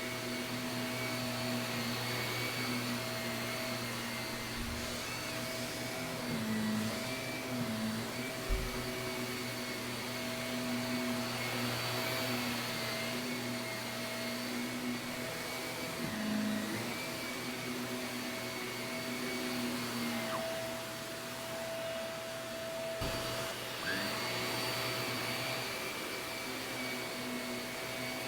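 Shark vacuum cleaner running on carpet, its motor pitch dipping briefly several times as it is worked back and forth. A few short knocks come in between.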